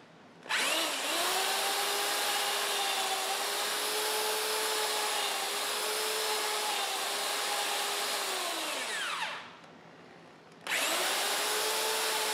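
Electric hand drill running a long bit down through a Model T Ford engine's lifter bore into the valve guide, boring the guide into line with the bore. The motor runs at a steady pitch for about eight seconds, winds down with a falling pitch, then starts up again about ten and a half seconds in.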